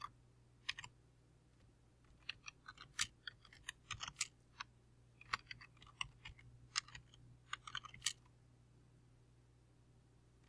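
Computer keyboard typing: faint keystrokes in quick runs, stopping a couple of seconds before the end.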